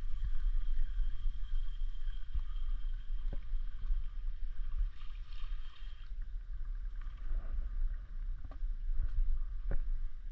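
Wind rumbling steadily on the microphone beside rippling water. A few sharp clicks, about three seconds in and twice near the end, come from the fishing rod being handled.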